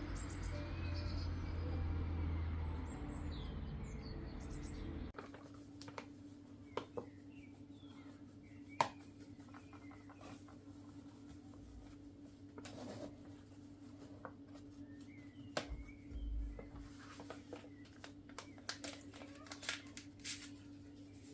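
Birds chirping over a low rumble, then, after an abrupt cut, kitchen work: scattered clicks and knocks of utensils and dishes over a steady appliance hum.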